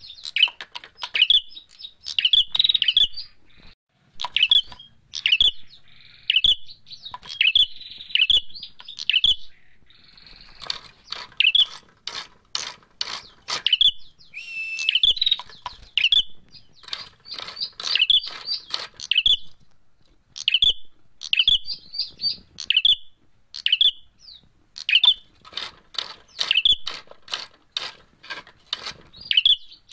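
Caged ashy tailorbird (prenjak merah) calling in quick runs of sharp, high chips, the aggressive calling of a bird roused to fight. Bouts of rapid clicking come with it about a third of the way in and again near the end.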